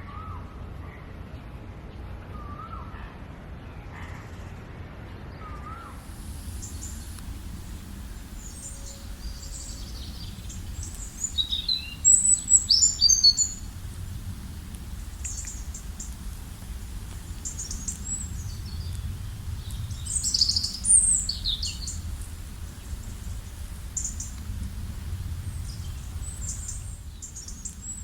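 Wild birds chirping and calling over a steady low rumble. A few lower, gliding calls come in the first several seconds, then quick high chirps and trills take over, loudest in two bursts about halfway and about three quarters in.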